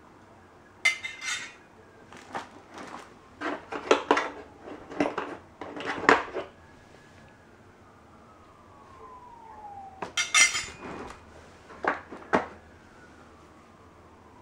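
Metal heat gun nozzle attachments clinking and knocking against each other and the hard plastic carrying case as they are picked up and handled, in scattered clusters of sharp clicks with a pause of a few seconds in the middle.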